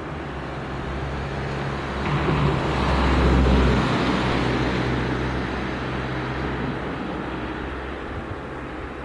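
A road vehicle passing, its engine and tyre noise swelling to a peak about three seconds in, then slowly fading away.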